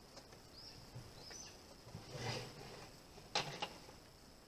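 Faint handling of a wooden board and parts on a table: a short clatter about two seconds in, then two sharp knocks a little over a second later. Under it, a steady high insect drone and two short bird chirps in the first second and a half.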